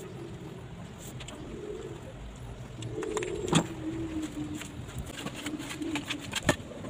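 Sharp clicks and taps of broken ceramic tile pieces being set and pressed into mortar, the loudest about halfway through and again near the end. A low, drawn-out call, like a bird cooing, sounds three or four times in the background.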